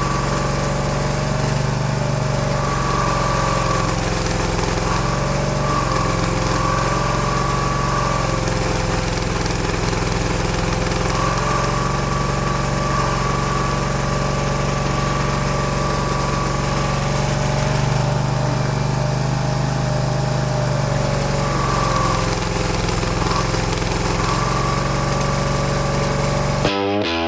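Barreto E30SGB tracked stump grinder's engine running hard, its note dipping and rising over several seconds, with a higher whine that cuts in and out.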